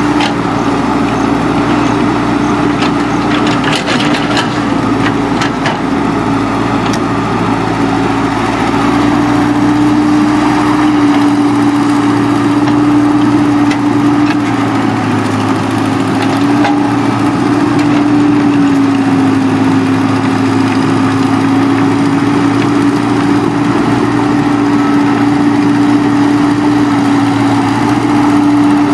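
Engine of a working earth-moving machine running steadily, its pitch wavering slightly up and down, with a few light knocks near the start.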